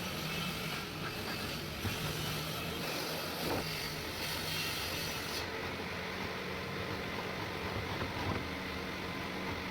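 Steady mechanical hum with hiss, like a machine running; the high hiss falls away about halfway through while the low hum continues.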